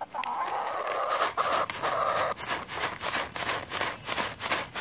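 White Leghorn hens pecking treats out of a hand-held plastic snack bag: a fast, irregular run of sharp taps, about four a second, with crinkling of the plastic.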